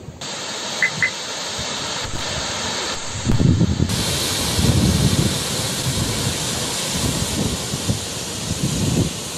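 Steady rushing hiss of water in flood, with low gusts of wind buffeting the microphone from about three seconds in; the hiss turns brighter a second later.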